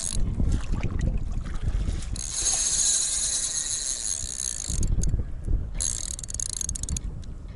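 Large spinning reel buzzing under the pull of a hooked grass carp during the fight, in a long spell of nearly three seconds starting about two seconds in and a shorter one about a second long near the end. Wind and water wash rumble underneath.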